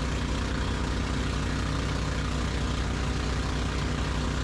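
Outrigger fishing boat's engine running steadily while the boat is under way.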